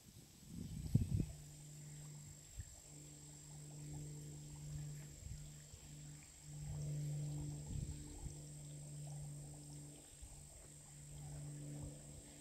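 A steady low hum from an unseen source, strongest for a stretch in the middle, with rumble on the microphone in the first second.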